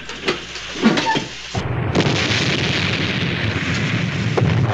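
Submarine ballast tanks being blown with compressed air to surface: a loud, steady rushing noise with a low rumble underneath. It starts suddenly about a second and a half in.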